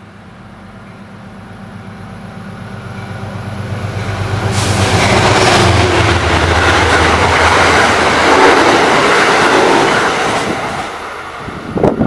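An Amtrak passenger train passing through the station at speed: a rumble swells as it approaches, stays loud for about five seconds while the coaches rush past, then eases off. A brief loud rush comes near the end.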